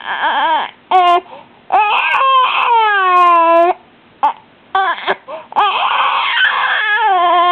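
Baby crying in a string of wails, the longest about two seconds and falling in pitch, broken by short gaps for breath. He is crying because of an attack of hiccups.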